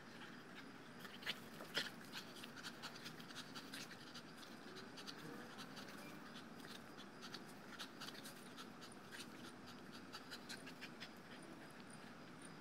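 Dogo Argentino panting softly as it tugs on a rope toy tied to a Tether Tug pole, with many scattered light clicks and ticks. Two sharper clicks come a couple of seconds in.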